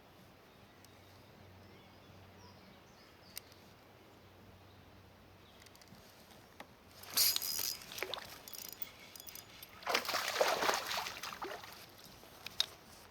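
Water splashing in two bursts, a short one followed a couple of seconds later by a longer one, over quiet open-air ambience with a few light clicks.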